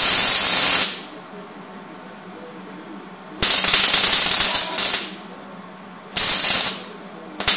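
Electric arc welding a steel nut onto a steel tube: three bursts of the arc's crackle and sizzle, about a second, a second and a half, and half a second long, with a very short one near the end.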